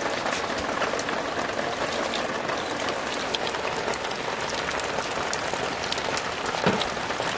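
Steady rain falling, an even hiss with scattered sharp drop ticks.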